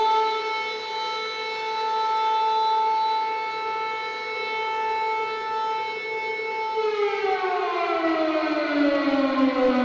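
Air-raid siren wailing on a steady high pitch, then sliding down in pitch from about three-quarters of the way through.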